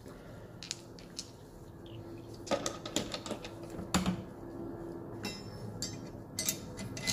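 Sharp metal clicks and clinks as the dies and parts of a pump-handle tube-flaring tool are handled in its hard plastic case, with a cluster of knocks in the middle and a few more near the end, over a faint steady hum.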